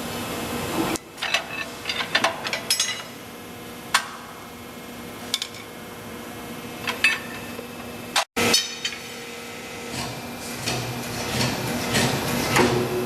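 Metal tools knocking and clinking against a steel wheel rim while a 7.50-16 tire is taken apart. A quick run of strikes comes about a second in, then single knocks every second or so, and busier scraping and clatter near the end.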